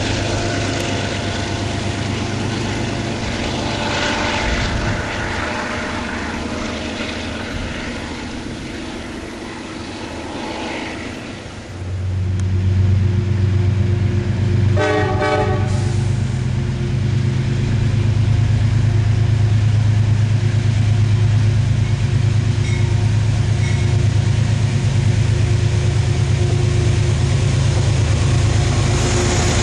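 GE P32AC-DM diesel locomotive approaching and passing close by. Its engine becomes suddenly loud about twelve seconds in, a short horn blast sounds a few seconds later, and then the engine runs loud and steady as it goes past.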